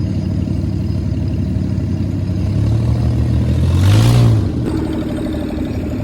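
Dune buggy engine running under way, its note rising to a rev about four seconds in, the loudest moment, then easing back.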